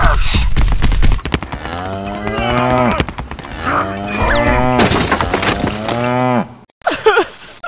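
Cow mooing, about three long lowing calls, dubbed over a toy cow being handled. A heavy thud comes just before the first call.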